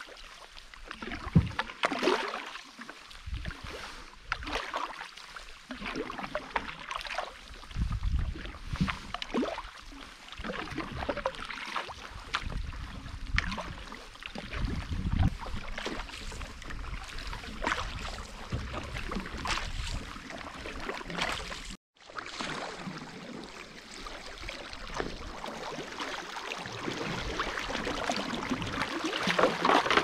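Canoe paddle strokes dipping and splashing in the water at an uneven pace, with some wind on the microphone. After an abrupt cut about two-thirds of the way through, a steadier wash of water noise grows louder.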